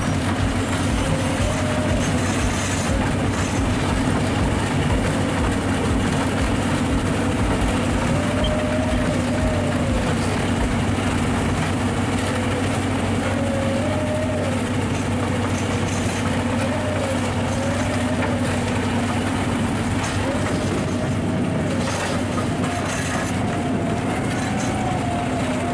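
Large crawler bulldozer working: diesel engine running steadily under load over the rattle of its steel tracks, with a wavering whine that rises and falls every couple of seconds.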